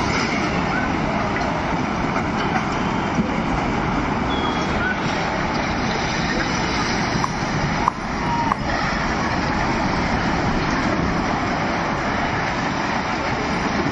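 Steady, loud roar of a landslide, earth and debris rushing down a hillside.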